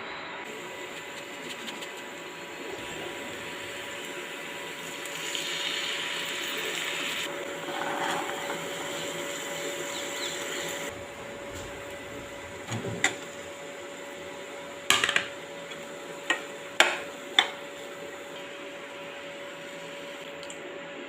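Kitchen cooking sounds: a steady hiss that swells for several seconds in the first half, then a handful of sharp clinks of a utensil against a pot or dish in the second half.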